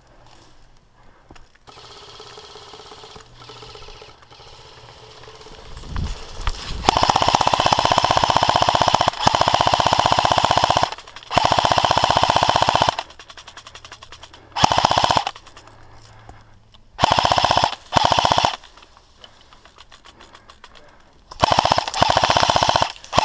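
Airsoft gun firing full-auto in rapid bursts: three long bursts back to back, then a few short ones, then another long burst near the end. A low thump comes just before the first burst.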